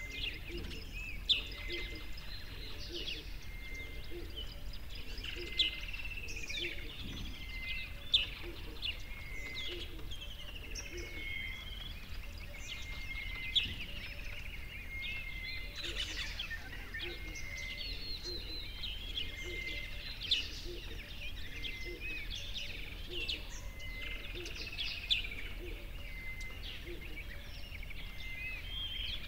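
Many small birds chirping and calling continuously over a steady low rumble, with a few sudden, louder sharp calls or clicks standing out several seconds apart.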